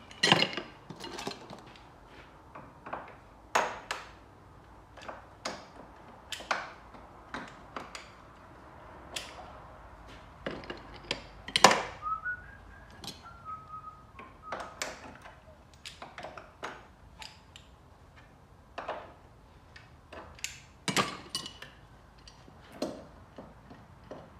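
Irregular metallic clinks, taps and knocks of hand tools working on a car's front hub and suspension, the loudest a sharp clank about halfway through. Just after it comes a brief whistled phrase of a few notes.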